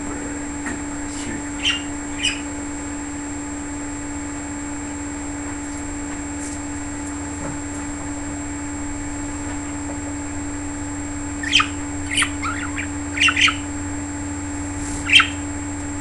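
Pet budgerigars chirping in short, sharp calls: two about two seconds in, then a quick run of chirps in the last few seconds, over a steady low hum.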